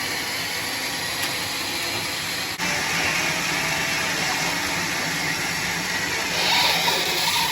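Sawmill machinery running with a steady hissing noise; the sound changes abruptly about two and a half seconds in and grows louder near the end.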